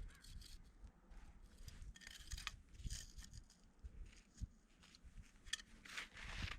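Faint, irregular scraping and rustling, in short uneven bursts.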